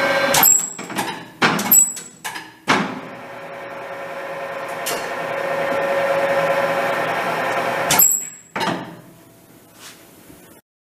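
Nardini MS-1440 gap-bed engine lathe: several sharp clunks from its controls in the first three seconds, then its spindle drive running with a steady whine that grows louder. A sharp click comes about eight seconds in, and the drive then dies away to a faint hum.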